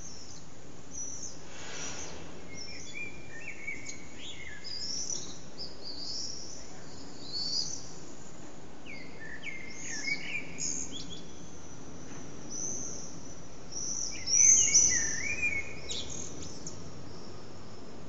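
Common blackbird singing: several phrases of lower fluted notes running into high twittering, the loudest phrase near the end, over a steady low background noise.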